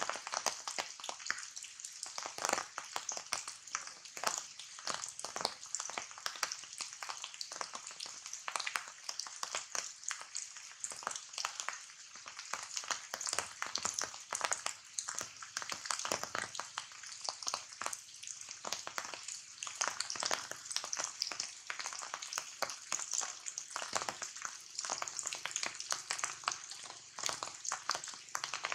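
Rain falling on tree foliage: a dense, irregular patter of drops over a steady high hiss.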